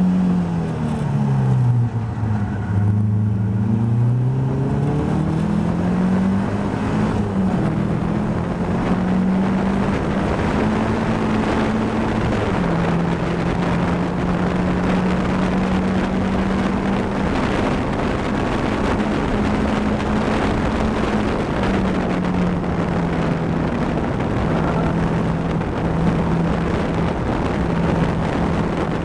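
Caterham Seven race car's four-cylinder engine heard from the cockpit: its note falls as the car slows for a corner, then climbs through the gears with a drop at an upshift and holds steady at full speed, dipping briefly a few times near the end.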